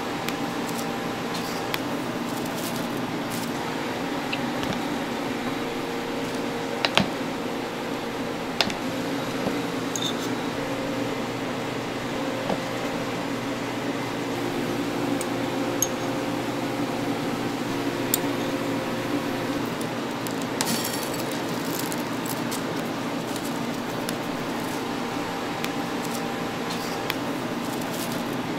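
Steady hum of kitchen appliances, with occasional light clicks and taps from handling utensils and toppings.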